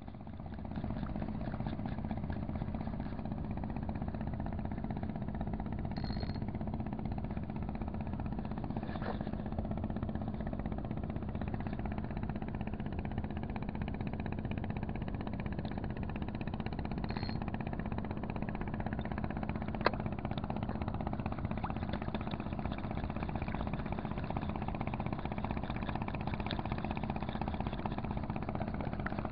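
An engine running steadily at an even pitch, setting in about a second in and holding without change. A single sharp click about twenty seconds in.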